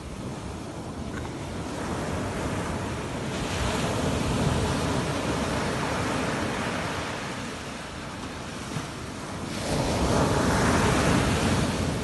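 Sea surf breaking and washing up a sandy beach, in two surges: one building about three seconds in, and a louder one near the end.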